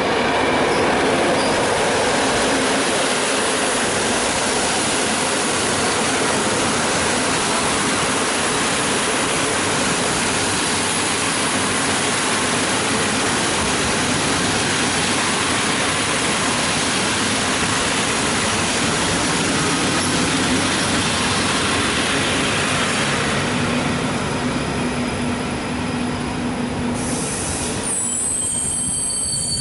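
Train running through the station, a loud steady rush of rolling noise. Near the end the rush dies down and a high-pitched wheel squeal sets in.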